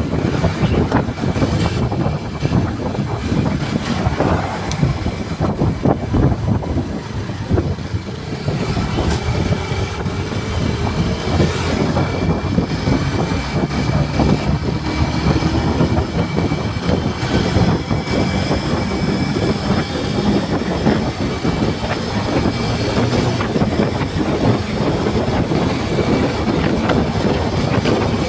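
Heavy wind rush and buffeting on the microphone, mixed with engine and tyre noise from a motorcycle riding at speed.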